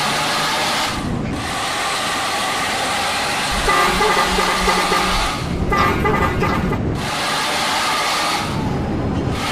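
Basuri-type 'telolet' multi-tone bus horn playing a tune, its notes changing in steps, with short breaks about a second in and again a little past halfway.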